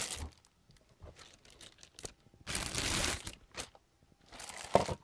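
Clear plastic bag crinkling in irregular bursts as a radio-control transmitter is slid out of it, loudest from about two and a half to three seconds in, with a short sharp crackle near the end.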